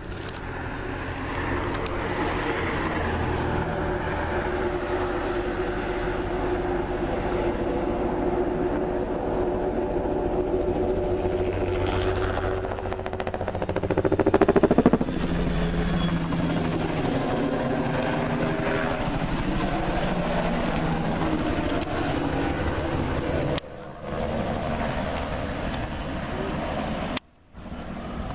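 Crop-spraying helicopter flying over, its engine and rotor running steadily. It is loudest about halfway through as it passes close, with its pitch falling as it goes by. The sound drops out briefly twice near the end.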